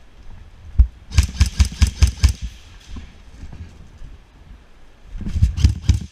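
Airsoft gun firing two short strings of rapid shots, about six or seven a second, the first lasting about a second and the second near the end. The sound is distorted by the camera's wrong housing back.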